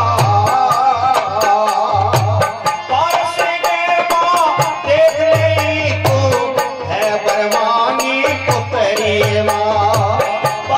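Live devotional bhajan: a man singing to his own harmonium, with a drum and a steady, clicking rattle-like percussion keeping the beat.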